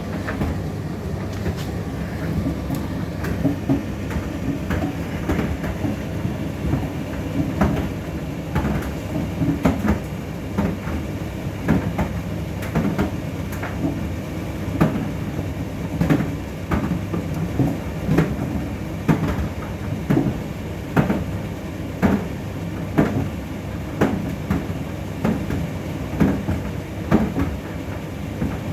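Indesit IDC8T3B condenser tumble dryer running mid-cycle: a steady hum from the motor and fan, with a regular knock about once a second as the drum turns.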